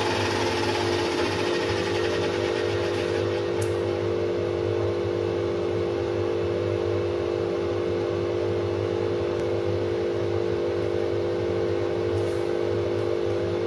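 Pegas fine-cut bandsaw running with no cut, a steady motor hum. A few faint ticks as the cut wooden block is handled.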